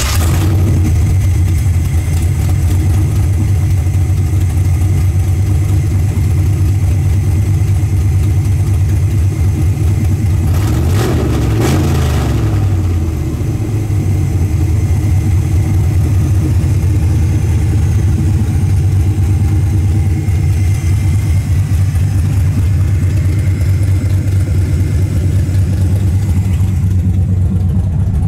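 2000 Pontiac Trans Am's 5.7 L LS1 V8, fitted with an aftermarket cam, idling steadily. About eleven seconds in, the throttle is blipped once and the engine revs up and settles back to idle.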